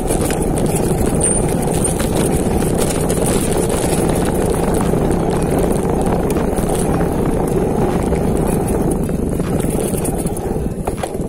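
Mountain bike riding downhill, heard from a camera on the bike or rider: a steady rush of wind and tyre noise on the microphone, with many small rattles and clicks from the bike over rough ground.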